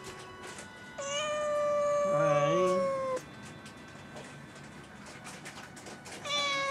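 A domestic cat meowing: a long, drawn-out meow about a second in, with a shorter wavering call over its end, then another long meow starting near the end.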